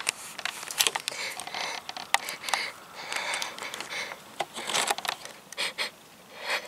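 Acted crying: short breathy sobs and sniffles, with small clicks scattered through.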